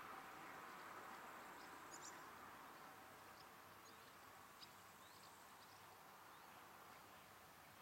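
Near silence outdoors: a faint noise fades away over the first couple of seconds, then scattered faint bird chirps.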